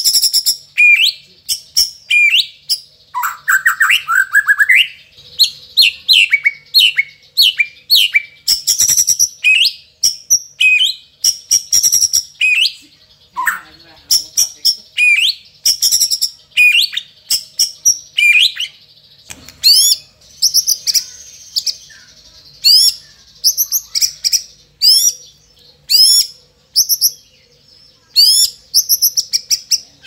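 White-rumped shama singing a fast, varied song of short, sharp whistled notes and chirps, many sweeping up or down, with a brief buzzy passage about twenty seconds in. The song is loaded with mimicked phrases (isian) taken from other birds and insects.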